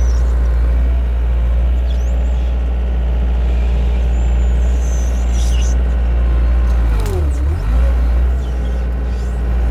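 A large engine running steadily at a low hum. About seven seconds in, its pitch dips briefly and comes back up. A few faint high squeaks sound over it.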